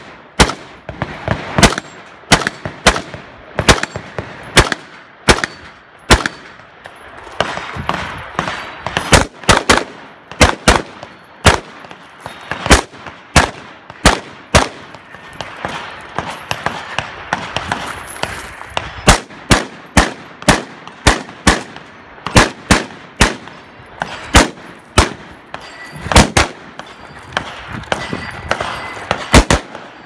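Gunfire from a 3-gun competitor shooting through a stage: dozens of loud shots, some single and some in quick pairs, irregularly spaced with brief pauses, each with a short echo.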